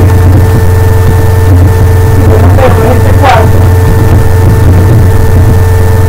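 Loud, steady electrical hum: a strong low buzz with thin higher overtones above it, with no change in level. This is interference picked up by a computer's sound input. A brief higher-pitched sound passes about halfway through.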